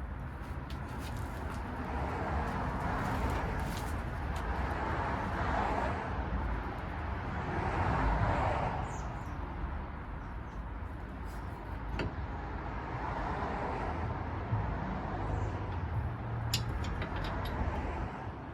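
Steady background of road traffic, with passing vehicles swelling and fading, and a few sharp clicks.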